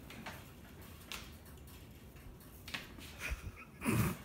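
A few short, faint breaths, then near the end a short, low, pained groan from a man reacting to the burn of a Carolina Reaper chip.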